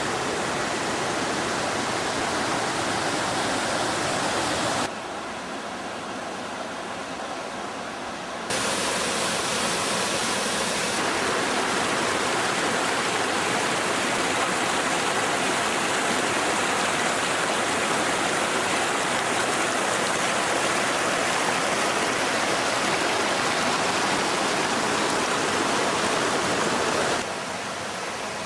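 Rushing water of a river cascade, a dense, even noise. It drops suddenly about five seconds in, returns a few seconds later, and drops again near the end.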